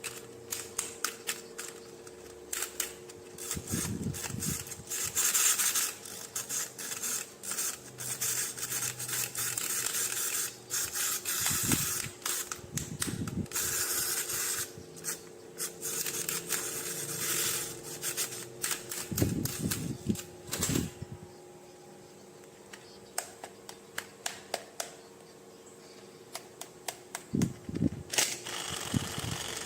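Plastic toys and packaging being handled and unboxed: irregular clicks and taps, crinkly rustling, and a few dull thumps as pieces are set down, over a faint steady hum.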